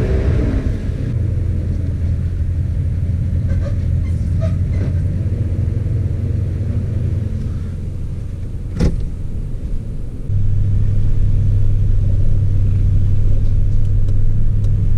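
Toyota Tundra pickup's engine running, heard as a steady low drone from inside the cab. A single sharp click comes a little past halfway, and about two-thirds of the way through the drone steps up louder and holds steady as the truck pulls away.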